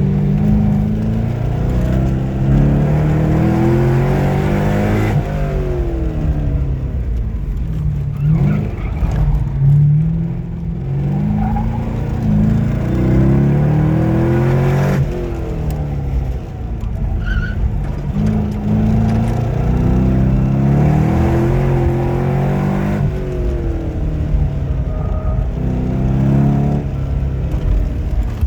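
Corvette Z06's V8 engine driven hard around a track, rising in pitch through several upshifts, then dropping back when lifting off, in repeated cycles several seconds apart.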